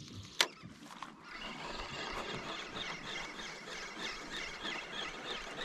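A flock of seabirds calling: a dense, overlapping chatter of short, high squealing calls that sets in about a second in. It is preceded by a single sharp knock.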